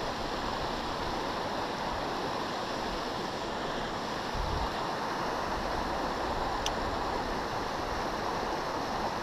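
Creek water rushing steadily over a riffle, an even hiss with no change throughout.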